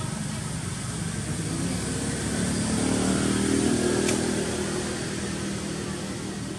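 A motor vehicle's engine passing by, its low hum swelling to a peak about halfway through and then fading away.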